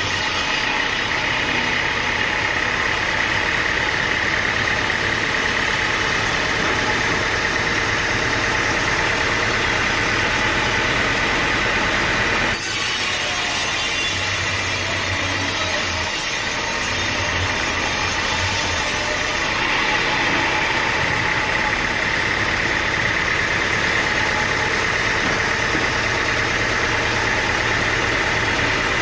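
Engine-driven sawmill running steadily. There is an abrupt break in the sound about twelve seconds in.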